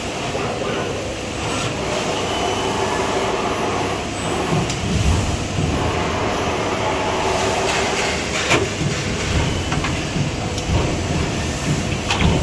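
Steady hum of a hydraulic CNC press brake running as sheet metal is bent, with a few sharp metallic knocks.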